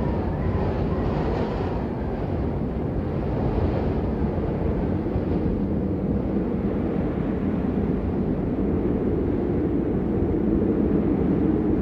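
Steady rain falling, an even low rushing hiss with no separate drops or breaks, heaviest in the low range.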